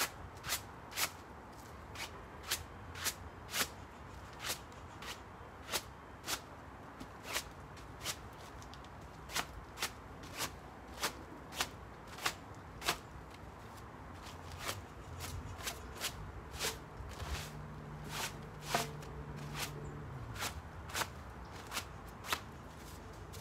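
Sharp clicks or ticks, about two a second and unevenly spaced, that go on throughout. A low hum comes in briefly about three quarters of the way through.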